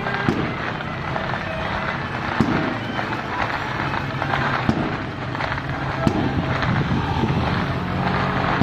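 Strings of firecrackers crackling densely and continuously, with a few louder bangs standing out at irregular intervals.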